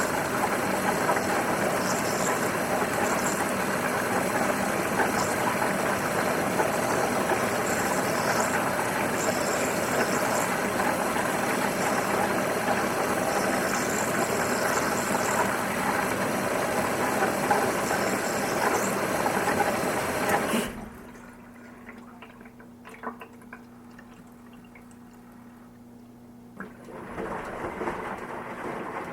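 Washing machine with water rushing loudly and steadily. About two-thirds of the way through it cuts off suddenly, leaving a low steady hum and a few faint clicks, and a louder sound starts up again near the end.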